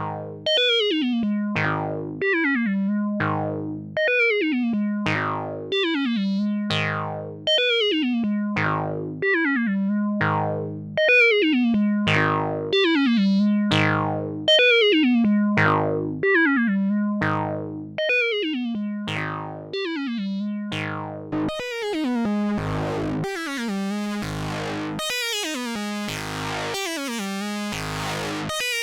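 Korg Monologue synthesizer fed through guitar effects pedals, playing a repeating low note about once a second, each with a falling filter sweep. About three-quarters of the way through, the sound turns denser and buzzier, with more treble.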